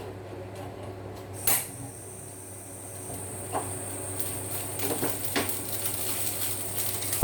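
Cookware being handled at the stove: a frying pan is knocked down sharply about a second and a half in, followed by a few lighter clinks and knocks. A thin, steady high-pitched tone starts with the first knock and carries on.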